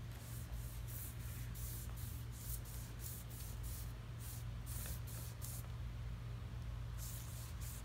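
Foam brush stroking acrylic paint onto paper: a run of short swishes, two or three a second, with a brief pause about six seconds in, over a steady low hum.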